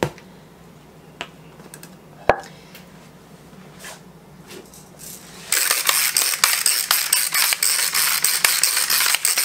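A few light knocks and one sharp knock a little past two seconds in, then from about five and a half seconds in a ratchet pepper grinder being cranked: a fast, loud run of ratchet clicks as it grinds pepper.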